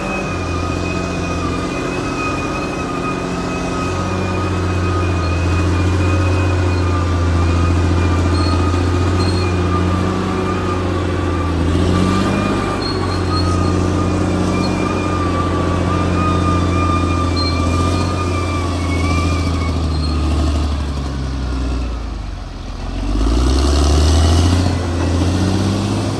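Caterpillar D6R XL bulldozer's diesel engine running under load, its pitch shifting as it works, with a steady high whine over it. Near the end it dips briefly, then revs back up.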